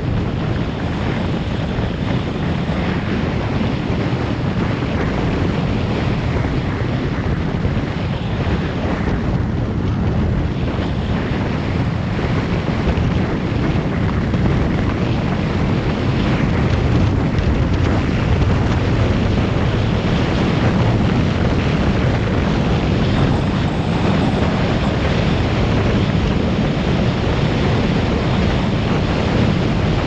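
Steady rush of wind buffeting a helmet-mounted camera's microphone on a moving motorbike, with engine and road noise underneath.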